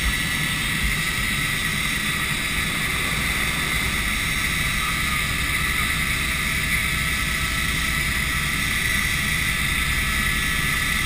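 Helicopter in flight heard from inside the cabin: a steady turbine whine over the low, pulsing noise of the rotor and a broad rushing hiss, holding constant throughout.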